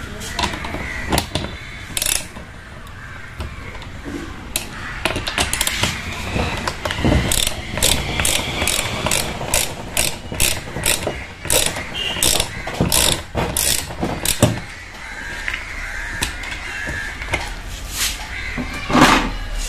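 Hand tools working on metal: a ratchet wrench clicking along with irregular metal clicks and knocks as the drive pulley is taken off a top-load washing machine.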